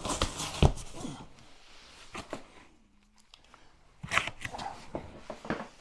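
Cardboard box lid being pulled off and handled: crackling, scraping cardboard with a sharp knock about half a second in, a brief lull, then more rustling and clicks.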